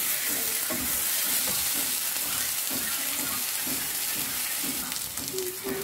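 Chopped onions sizzling as they fry in butter in a nonstick frying pan, stirred with a wooden spatula. The onions are browned, at the point where ginger garlic paste goes in.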